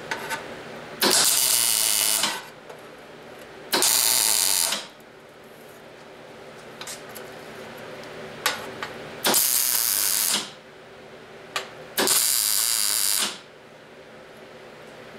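Wire-feed welder arc crackling in four short welds, each about a second long, fixing a steel mount to a steel base plate. There are small clicks between the welds.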